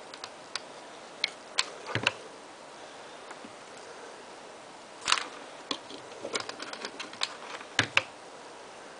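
Scattered small clicks and taps from hands working craft materials and tools: a few in the first two seconds, then a busier run from about five to eight seconds in, over a faint steady hiss.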